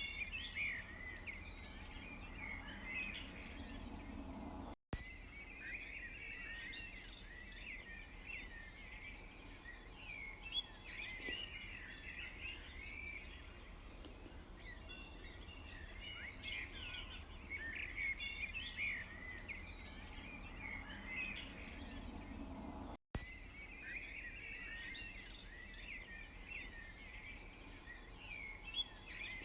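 A chorus of many small birds chirping and twittering at once, dense and unbroken, over a low steady rumble. The sound cuts out for an instant twice.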